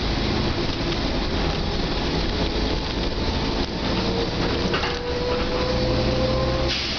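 Mercedes-Benz OC500LE city bus under way, heard from inside the passenger cabin: steady engine drone and road noise, with a thin whine that rises steadily in pitch over a few seconds and stops near the end.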